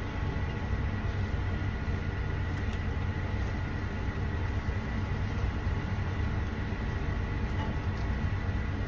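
Steady low rumbling hum with a thin, faint whine held over it, unchanging throughout.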